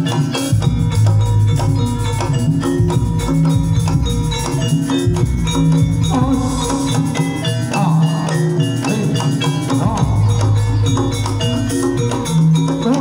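Javanese gamelan accompanying a jaranan dance: pitched gongs and metallophones ring out steady notes over repeated drum strokes, in a loud, continuous rhythm. A wavering, ornamented high melody joins about six seconds in.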